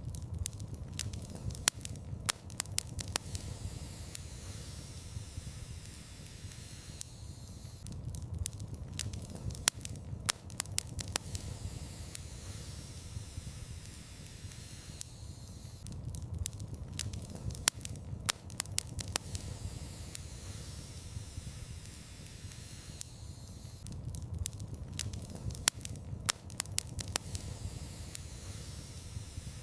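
Wood fire in a fireplace burning with a low steady rumble, broken by clusters of sharp crackles and pops that come back about every eight seconds.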